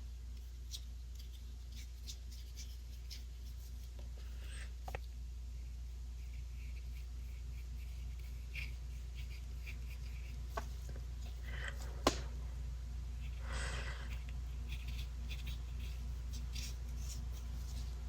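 Faint brushing of a paintbrush laying acrylic paint onto paper in short strokes, with scattered light taps and a sharper click about twelve seconds in, over a steady low hum.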